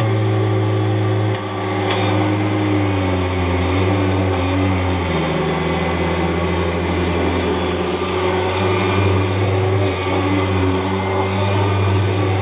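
Kirby G3 upright vacuum cleaner running steadily as it is worked over carpet to pick up ground-in baking soda, its motor note dipping slightly about five seconds in.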